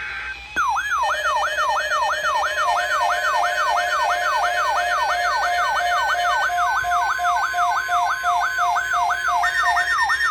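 Emergency alert tone for a tornado watch: a loud, rapid siren-like warble sweeping up and down about three times a second, starting about half a second in, with steady beeping tones sounding along with it.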